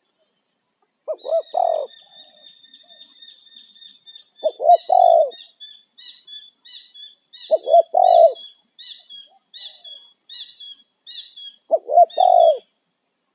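Spotted dove (tekukur) cooing: four phrases a few seconds apart, each a couple of short quick notes running into a longer coo. A high, thin chirping goes on behind the coos, steady at first and then pulsing about twice a second.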